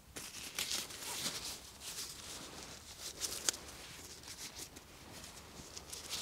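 Close rustling and crinkling of clothing and thin plastic against a clip-on microphone while disposable gloves are handled and pulled on, with a few sharp clicks, the sharpest about three and a half seconds in.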